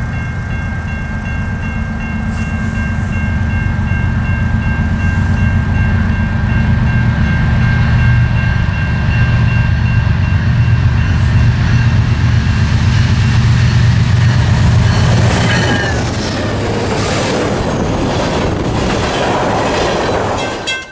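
Freight train passing a grade crossing: the diesel locomotive's engine rumble builds as it approaches and peaks about 15 s in, then gives way to the rushing clatter of covered hopper cars rolling by. A steady high ringing from the crossing bells sounds through the approach.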